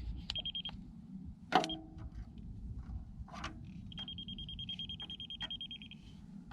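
A high electronic beep, first a short one and then one held for about two seconds, with a sharp click and small handling knocks between them.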